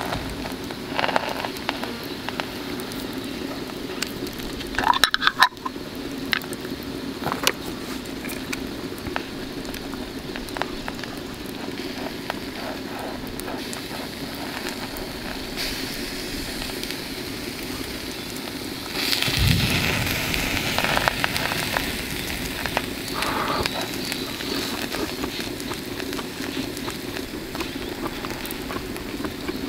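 Fried eggs and sausages sizzling in a frying pan, with scattered crackling clicks, a short clatter about five seconds in, and a louder stretch of hissing about two-thirds of the way through.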